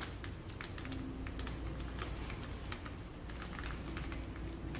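Irregular light clicks and taps as a plastic-gloved hand pats and presses breading powder onto a fish on a plate, over a steady low hum.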